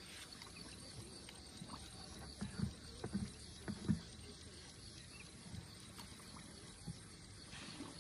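Quiet outdoor ambience with a faint steady high-pitched tone, broken by a few soft low thumps about two and a half to four seconds in.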